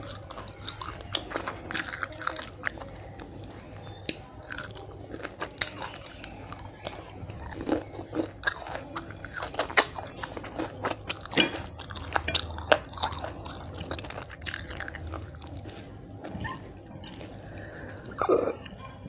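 Close-miked mouth sounds of a person chewing mouthfuls of rice and fried fish eaten by hand, a run of irregular wet smacks and sharp clicks.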